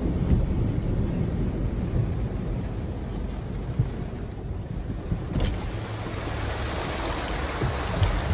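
Heavy rain and rushing flood water heard from inside a car cabin, a steady hiss over a low rumble. About five seconds in there is a click, and after it the hiss grows brighter and louder.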